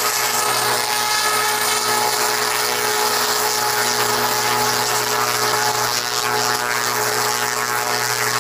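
Mil Mi-8-family twin-turbine transport helicopter hovering low as it comes in to land, its engines and rotors making a steady, unchanging noise with a constant high whine.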